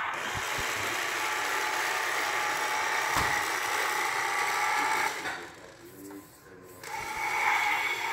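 Battery-powered toy garbage truck's small electric motor and gears whirring steadily as it drives across a wooden floor. It stops about five seconds in and starts again just under two seconds later.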